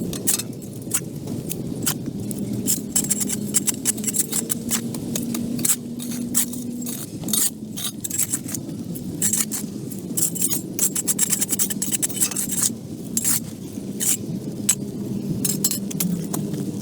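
Many short scrapes and clinks of hard objects, irregular and close together, over a steady low mechanical hum.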